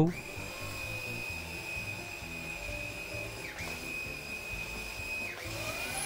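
Iris Ohyama SCD-190PW cordless stick vacuum running with a steady high-pitched motor whine. The whine dips briefly twice, and near the end the pitch starts to glide as the motor changes speed.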